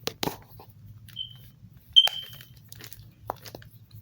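Plastic packaging and a small fidget toy being handled: scattered clicks and taps, the loudest a sharp click with a short high ring about two seconds in.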